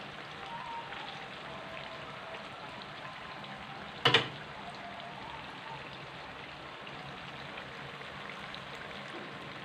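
Turon (banana and ripe-mango spring rolls) deep-frying in hot oil in a wok: a steady crackling sizzle. About four seconds in there is a single sharp knock, the loudest sound.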